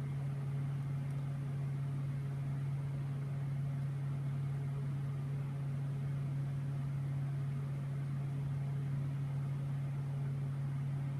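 Steady low hum with a faint even hiss, unchanging and with no other sound standing out.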